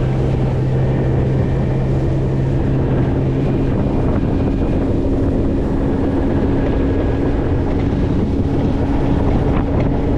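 Boat outboard motor running steadily under way, with heavy wind buffeting the microphone. The engine's low hum shifts about three seconds in.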